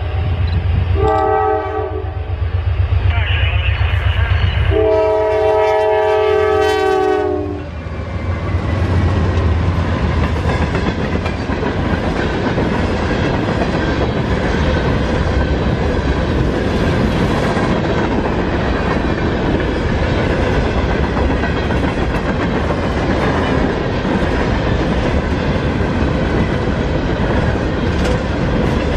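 Norfolk Southern freight train: the locomotive's air horn sounds a short blast about a second in and a long blast from about five to seven seconds in, over the low rumble of the passing locomotives. Then a long string of open-top hopper cars rolls by, its wheels clattering steadily on the rails.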